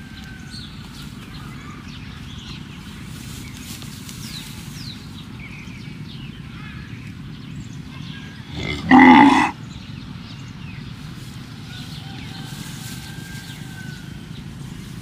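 Cattle mooing: one short, loud moo about nine seconds in, over a steady low background rumble.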